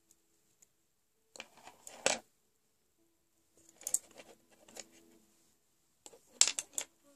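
Small hard items and their packaging being handled: clicks, light rattles and rustles in three short bursts, about a second and a half in, around four seconds, and loudest at about six and a half seconds.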